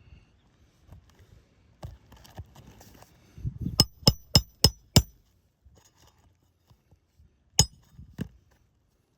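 Hammer driving a roofing nail into asphalt shingles: five quick, ringing strikes about three a second, then one more hard strike and a lighter tap a few seconds later.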